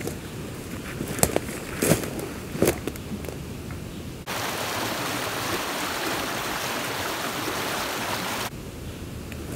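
Footsteps through dry leaf litter and sticks, with three louder steps, then a creek rushing over rocks in whitewater. The rush starts and stops abruptly, lasts about four seconds, and is followed by more footsteps.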